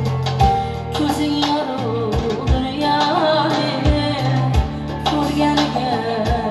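A woman singing an Uzbek song into a microphone, over live accompaniment of a keyboard and a doira frame drum keeping a steady beat of low strokes.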